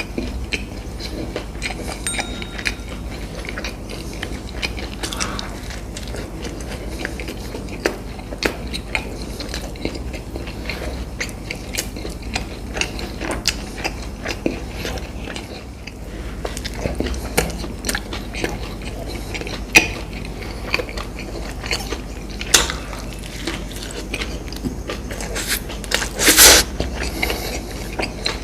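Close-miked eating: chewing and crunching, with many small clicks and crackles from bites, and one louder brief noise near the end.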